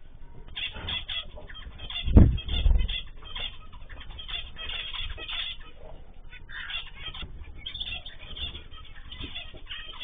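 A mixed aviary of cockatiels, zebra finches and canaries chirping and calling over one another, many short overlapping calls. About two seconds in there is a heavy low thump, then a second one.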